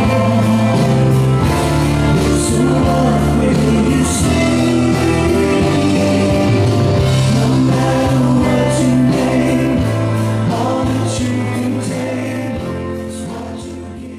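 A song with singing over a steady beat and bass line, fading out over the last few seconds.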